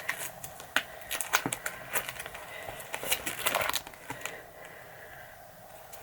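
Photo album being handled and its pages turned: a run of rustles and small clicks for about four seconds, then quiet room tone.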